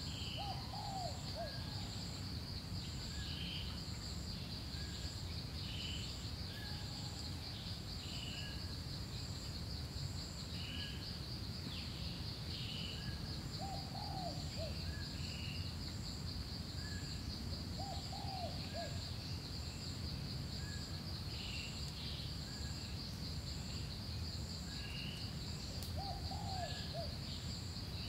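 Forest ambience: a steady, pulsing insect drone with birds calling over it, short calls repeating every second or two and a few lower warbling calls about a second in and again several times later, over a steady low background rush.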